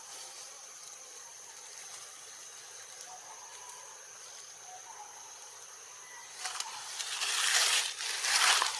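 A steady, high-pitched insect drone with a few faint short chirps under it. About six and a half seconds in, two loud bursts of rushing noise take over for about two seconds.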